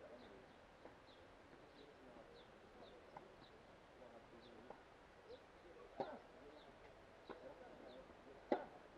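Tennis ball struck during a rally: a sharp pock about six seconds in and a louder one near the end, with a few fainter knocks between. A short, high bird chirp repeats steadily throughout.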